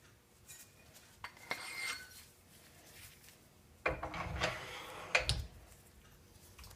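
Steel tool-rest parts of a 2x72 belt grinder handled, metal on metal: a light clink about a second in, then a louder clatter and scrape from about four seconds in as a round rest post is worked into the tool arm.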